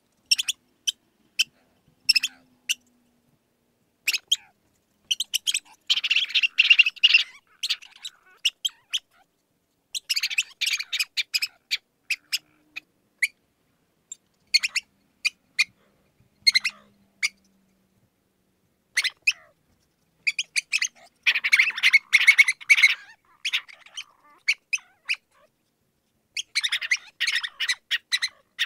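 Mouse squeaking: quick runs of short, high-pitched squeaks and chirps in clusters of a second or two, with single squeaks and pauses between them.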